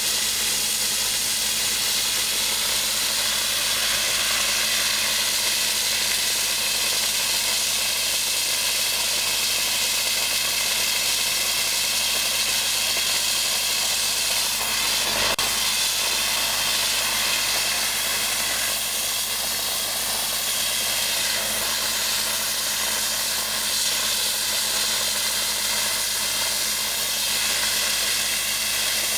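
Dry-ice (CO2) blasting gun spraying a steady hiss of compressed air and dry ice against a metal cylinder, cleaning its surface. A faint low hum runs underneath.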